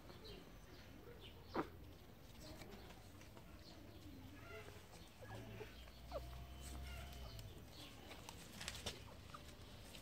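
Faint squeaks and small sucking sounds of newborn puppies nursing, with one short sharp squeak about one and a half seconds in.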